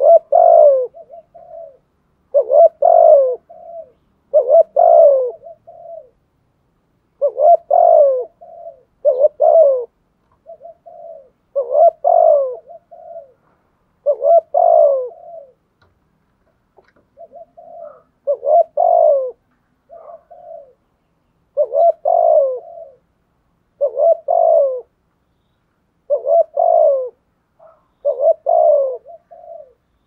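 Spotted dove cooing: a phrase of two loud coos trailed by a few softer clipped notes, repeated roughly every two seconds.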